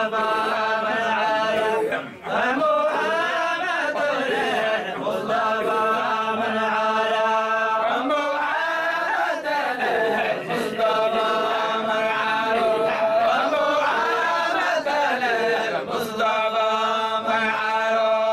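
A group of young male voices chanting a Sufi dhikr together, in long held notes that glide up and down, with brief breaths between phrases.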